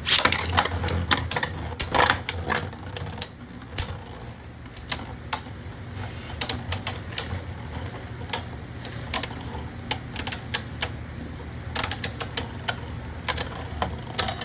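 Two Beyblade Burst spinning tops whirring and clattering against each other in a plastic stadium. Rapid clicking collisions come thickest in the first few seconds and again near the end, with sparser knocks between.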